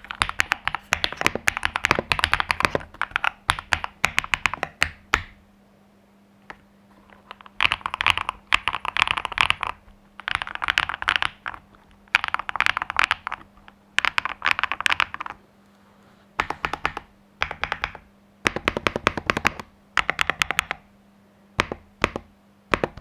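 Stock Cidoo QK61 V2 mechanical keyboard being typed on: fast runs of keystroke clicks in bursts, the longest about five seconds at the start, then shorter runs with brief pauses between them.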